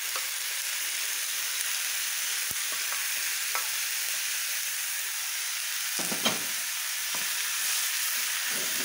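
Chicken drumsticks sizzling steadily in hot oil in a frying pan, while a spoon scrapes the leftover marinade from a glass dish into the pan. There are a few short knocks and scrapes of the spoon against the dish and the pan, the loudest a little after the middle.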